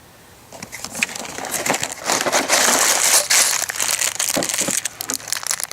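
A cardboard LEGO set box being opened and its contents handled: rustling and crinkling with scattered clicks. It starts about half a second in and is loudest in the middle.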